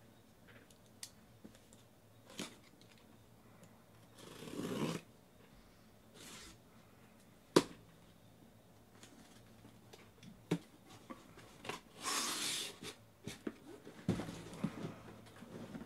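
Cardboard shipping case being opened by hand: rasping and tearing as the sealing tape and flaps are worked open, a single sharp click about halfway, and a longer rip a little after twelve seconds, then knocks and rustling as the box is tipped and handled.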